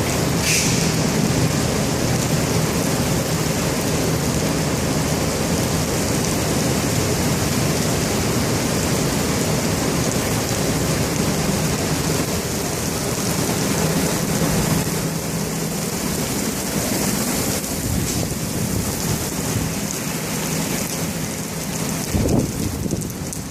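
Heavy thunderstorm downpour: rain pouring steadily, with low rumbling thunder underneath. It eases briefly near the end.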